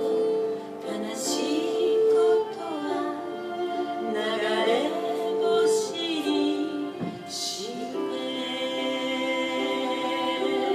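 Music: a song with a singer's voice, held notes with vibrato, over instrumental accompaniment.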